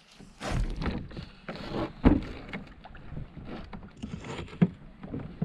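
Water splashing and sloshing around a kayak, with handling noise and two sharp knocks, the louder about two seconds in and another near the end.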